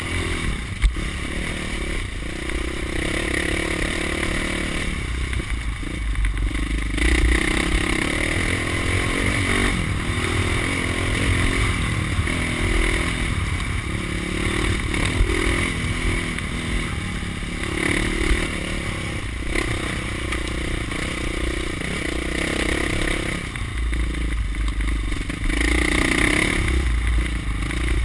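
Dirt bike engine running while riding a rocky gravel trail, its revs rising and falling with the throttle, over the clatter and scrape of the bike going over loose stones.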